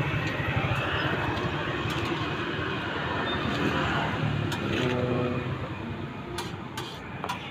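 Steady street traffic noise from passing vehicles, with a few sharp clicks in the second half.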